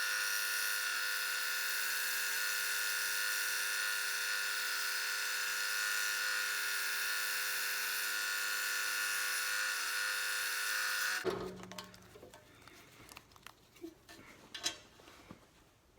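Scroll saw running steadily as it cuts thin plywood, then shutting off suddenly about eleven seconds in. A few light clicks and knocks of wood being handled follow.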